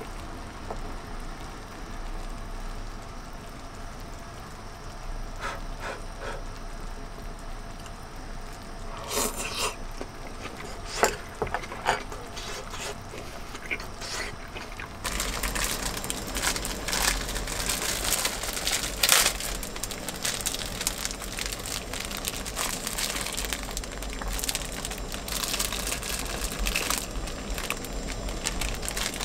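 Broth simmering in an earthenware pot on a portable gas burner, with a few sharp clicks of chopsticks against the pot. About halfway through, a denser crackling, bubbling sound comes in and carries on.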